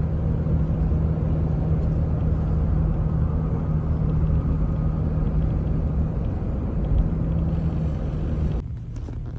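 Cabin noise of a car driving along a highway: a steady low rumble of tyres and engine with a constant hum. Near the end it drops abruptly and gets quieter.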